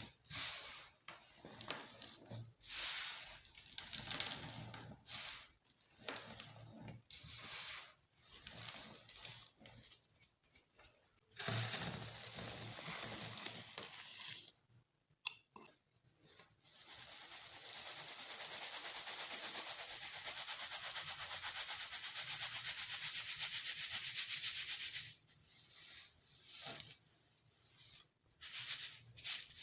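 Baking soda being crushed: a run of irregular crunches, then a steady, fine, gritty crackle lasting several seconds from a little past the middle, then scattered crunches again near the end.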